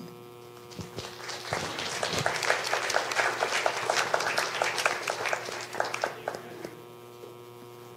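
A small audience applauding, starting about a second in, building and then dying away near the end, over a steady electrical hum.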